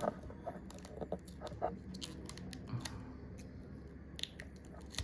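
Small irregular clicks and scraping as a prying tool works the iPhone XR's battery loose from its old, brittle adhesive.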